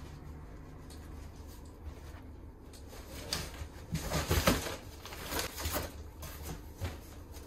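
A large cardboard shipping box being set down and its flaps pulled open: a quick run of cardboard scrapes, rustles and thumps starting a few seconds in, loudest about halfway through.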